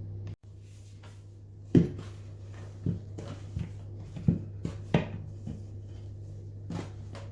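Knocks and clunks of sharpening gear being handled and set down, about five distinct knocks with lighter clatters between them, over a steady low hum.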